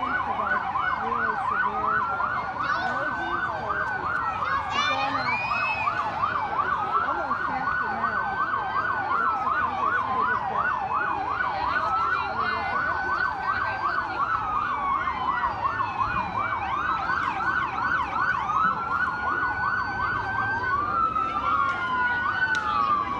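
Emergency vehicle sirens, switching back and forth between a slow rising-and-falling wail and a fast yelp of about four sweeps a second. Near the end more than one siren overlaps.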